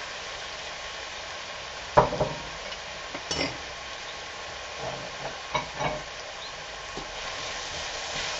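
Chopped mushrooms and red pepper frying in oil in a non-stick frying pan with a steady sizzle, the mushrooms freshly added. A wooden spoon knocks and scrapes against the pan several times, the sharpest knock about two seconds in.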